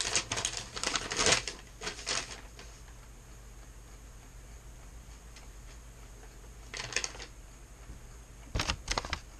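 Paper rustling and crackling in short bursts as a folded note is handled and opened out: a busy stretch in the first couple of seconds, a brief one around seven seconds and another near the end.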